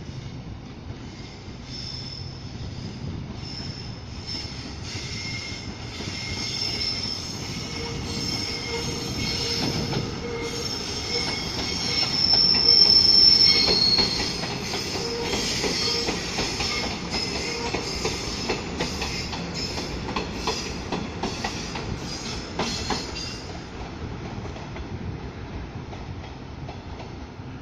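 EMU500-series electric commuter train running through the station, its wheels squealing in a high-pitched screech that is loudest about halfway through. Later come a series of clicks as the wheels cross rail joints.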